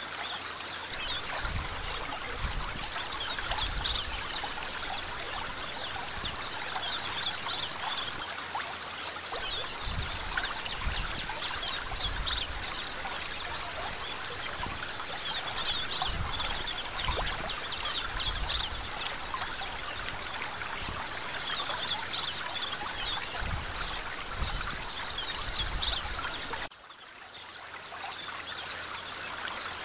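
Shallow water lapping and trickling against the rocks at the shore, a steady splashy hiss with irregular low rumbles underneath. It turns quieter near the end.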